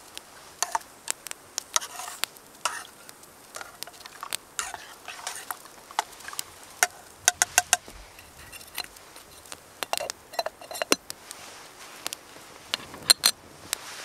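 A metal spoon stirring steeped coffee in a small metal pot, clinking against its sides again and again: the stir that lets the grounds sink. Near the end the pot's lid is set on with a couple of louder clinks.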